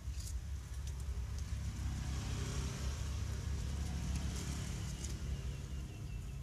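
Bok choy leaves rustling and snapping as they are picked off by hand, a few sharp snaps standing out. Under them a low rumble with a hiss swells for a few seconds in the middle, then eases off.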